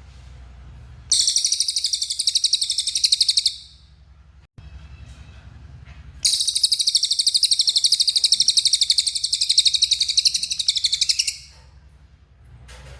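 Cililin songbird singing vigorously: two long, very rapid, even high-pitched trills, the first about two and a half seconds long and the second about five, with a short pause between.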